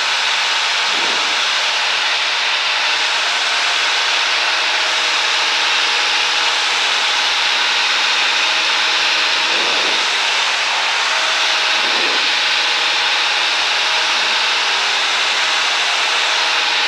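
A Cessna 172's piston engine and fixed-pitch propeller running steadily in flight, heard inside the cockpit as a loud, even drone with a hiss of rushing air.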